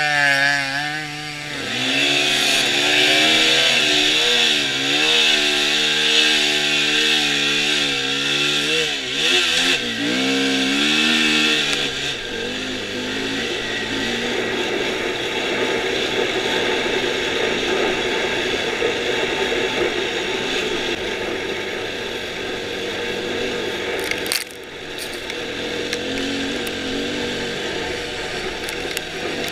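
Dirt bike engine heard from on the bike while riding through soft sand. For about the first twelve seconds it revs up and down repeatedly. After that it settles into a steadier drone mixed with wind noise.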